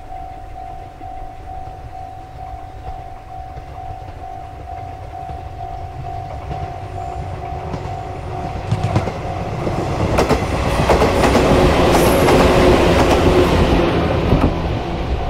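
A level crossing warning bell dings steadily, about three times a second, as an electric train approaches and passes. The train's noise builds from about halfway through, with wheels clacking over rail joints, and is loudest near the end before easing off, with the bell heard again as it fades.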